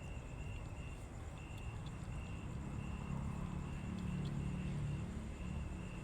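Outdoor background: a low engine hum that swells around the middle, as from a passing vehicle, over a high, short chirp repeating about twice a second and a few faint clicks.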